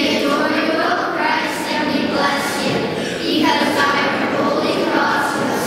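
A group of children's voices singing together, the notes held and continuous without pauses.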